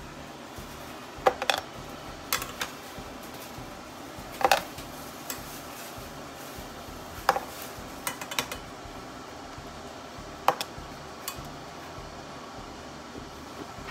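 Metal kitchen tongs clinking against a stainless saucepan and a plastic blender jar as boiled tomatillos are lifted out and dropped in: a short sharp clack every second or so, over a steady low hum.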